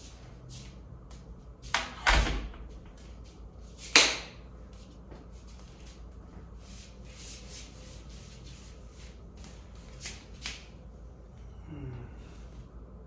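Shuffling steps and clothing rustling as two people move about and scuffle playfully. There are a few heavy thumps about two seconds in and a sharp, loud slap or knock about four seconds in. Lighter knocks follow near ten seconds.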